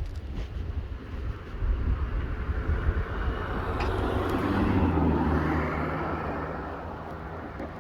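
Wind buffeting the microphone in a steady low rumble, with a swell of rushing noise that builds to a peak about five seconds in and then fades.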